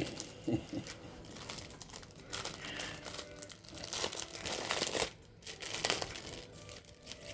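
Plastic crinkling and rustling as packaging is handled, in irregular spells that start and stop.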